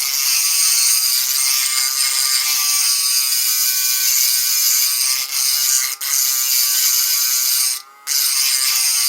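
High-speed rotary carving tool whining steadily as its bit grinds the edges of a carved eggshell smooth, described as really obnoxious. It dips briefly twice and cuts out for a moment near the end.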